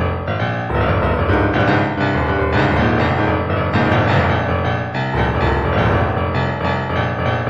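Instrumental background music led by piano, with chords changing about once a second over a deep bass.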